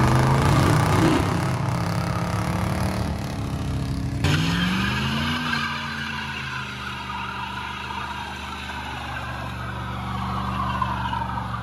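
A muscle car's engine runs hard as it accelerates away. About four seconds in, a Chevrolet Monte Carlo SS takes over, revving up with a rising pitch and then running steadily through a burnout, its rear tires spinning and smoking.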